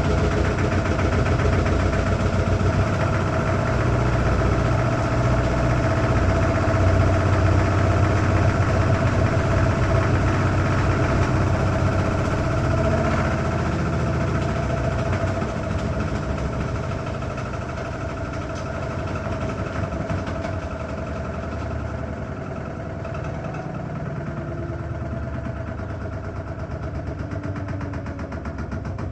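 Washing machine running with a steady mechanical hum and a fast, even rattle, which the owner calls very weird. About halfway through it eases off and gets quieter.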